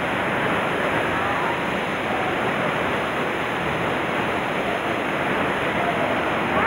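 Steady rush of a waterfall's falling water, an even noise with no rhythm or breaks.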